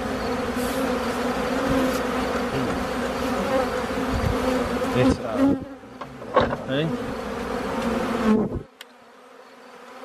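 Honeybees buzzing in a dense, steady drone around an opened hive full of bees. The buzzing thins out after about five and a half seconds and drops away near the end.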